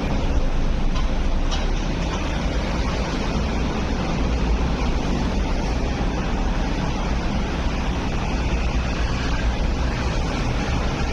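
Steady traffic and city noise with a deep, even rumble; no distinct individual event stands out.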